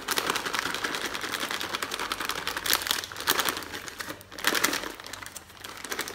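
Flaked almonds shaken from a plastic packet into a bowl of oats: a dense run of small clicks as the flakes land, mixed with the rustle of the packet.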